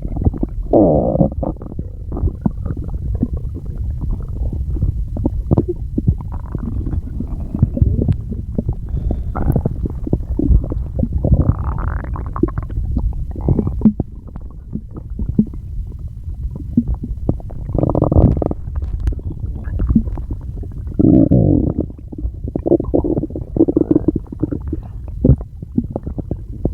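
A person's stomach gurgling and growling: a continuous low rumbling full of small pops and bubbling, with louder, drawn-out gurgles every few seconds.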